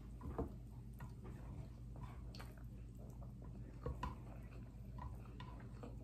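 Faint chewing of rice with soft, scattered mouth clicks and smacks, along with light sounds of fingers gathering rice on a plate, over a steady low hum.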